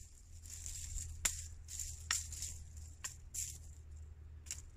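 A kukri-style chopping blade striking dry brush, about five sharp hits a second or so apart, with dead branches and dry leaves rattling at each strike.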